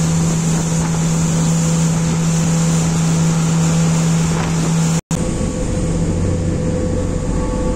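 Car ferry's engines running with a steady drone under the rush of water from its wake, with wind on the microphone. About five seconds in the sound drops out for an instant and returns with a deeper rumble.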